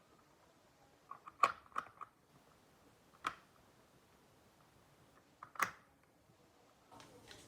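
Sharp mechanical clicks and clacks from handling a Glock 17 air pistol: a quick run of several clicks about a second in, a single click a little past three seconds, and another short run of clicks about five and a half seconds in.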